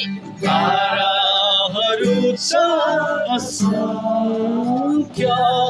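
A song: a voice singing a wavering melody over a steady accompaniment.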